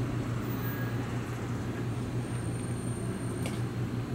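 Steady low hum of a stationary JR E131-series electric train standing at the platform with its onboard equipment running. A brief click comes about three and a half seconds in.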